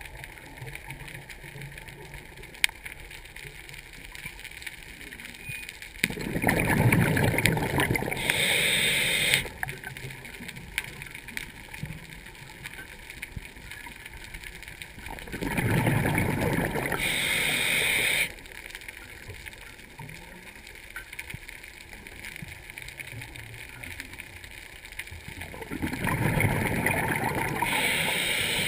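Underwater, a diver's exhaled breath bubbling past the microphone in three bursts of about three seconds each, roughly ten seconds apart, with a low steady water hum between them.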